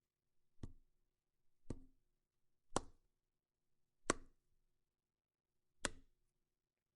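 Five separate sharp strikes on a gore foley prop, one about every second, with a longer pause before the last. Each hit is short with a brief tail.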